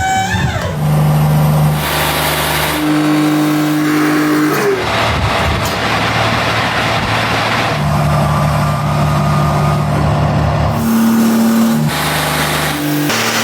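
Wood-Mizer portable sawmill running while it saws a log: an engine holding a steady pitch that shifts in steps every few seconds as the load changes, with a rushing noise from the cut that comes and goes.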